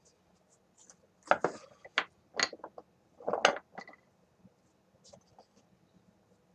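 Wooden broomstick knocking and clattering against a wooden workbench as it is pulled from a rolled clay tube and laid down. There are several sharp knocks over about three seconds, then only faint handling clicks.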